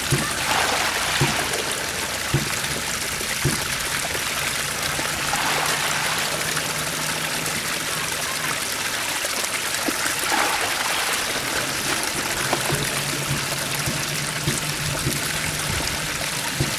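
Water pouring steadily from a narrow mud channel into a bamboo basket trap, splashing among the mass of trapped small catfish, with a few short knocks.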